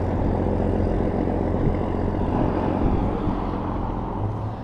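Steady vehicle engine and road noise with a low hum while riding, easing off near the end.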